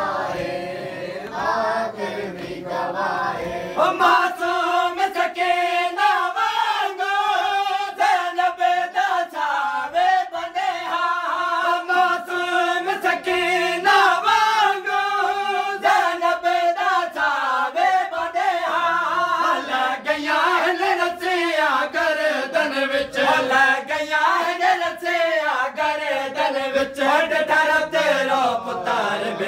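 A group of mourners chanting a noha together, with a steady beat of hands striking chests (matam) under the singing.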